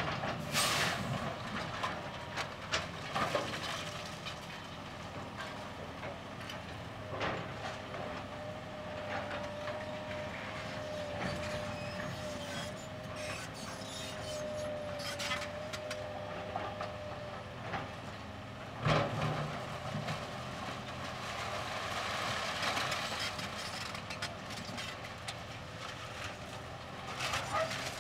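John Deere 470G excavator and dump truck working: a steady run of heavy machinery with sharp knocks and bangs of debris landing, the biggest about two-thirds of the way in. A wavering whine holds for about ten seconds in the middle, and wind buffets the microphone.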